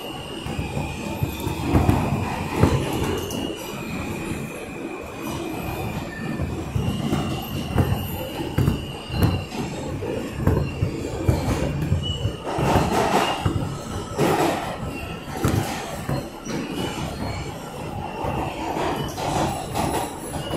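New York City subway train running through an underground station, heard from inside the car: a steady high wheel squeal against the rails, with irregular clanks and knocks from the wheels and running gear.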